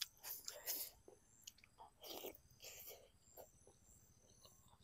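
Biting and chewing a mouthful of pork-stuffed squid with khanom jeen papaya salad: soft, wet mouth sounds in short irregular bursts, loudest at the start and about two seconds in.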